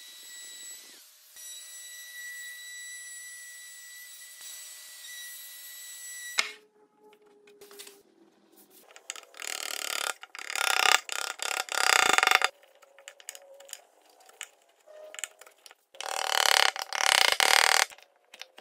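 Festool OF 1010 plunge router running with a steady high whine, which cuts off abruptly about six seconds in. After that come two loud stretches of scraping, a few seconds each, as a chisel pares the wood at the corner of the fresh chamfer.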